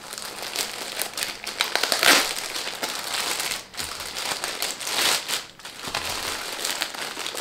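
Clear plastic bag crinkling and rustling irregularly as hands open it to get at the folded fabric kit inside, with louder crackles about two seconds in and again about five seconds in.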